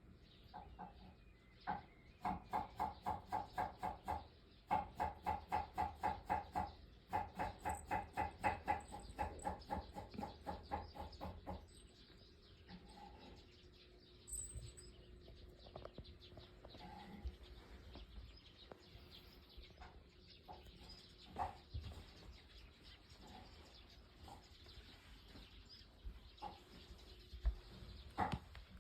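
A cat chattering at birds: fast runs of short, evenly spaced clicking calls, about four a second, in three bursts over the first dozen seconds, then only a few scattered faint sounds.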